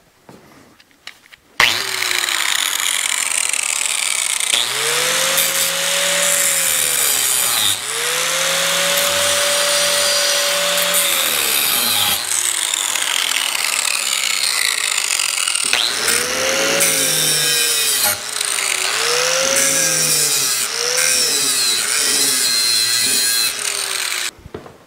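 Electric angle grinder starting up and cutting through the welds that join a steel plate to a steel pipe post. Its motor pitch dips again and again as the disc bites into the steel, then recovers between cuts. It starts about a second and a half in and stops just before the end.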